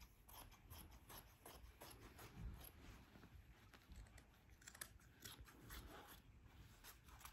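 Scissors snipping up the side seam of a striped button-up shirt: a quick run of faint, short cutting snips, several a second.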